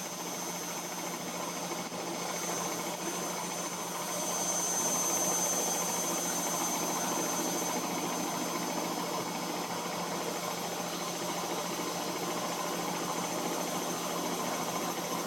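Washing machine running its wash cycle with the drum turning: a steady mechanical hum that grows slightly louder about four seconds in.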